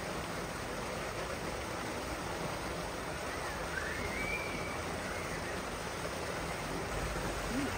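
Steady rushing of running water, with a faint high call that rises and falls briefly about four seconds in.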